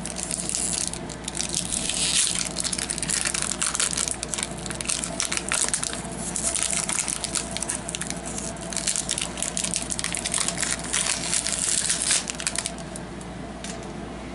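Crinkling and crackling of a hockey card pack wrapper being torn open and crumpled: a dense run of small crackles that dies down near the end.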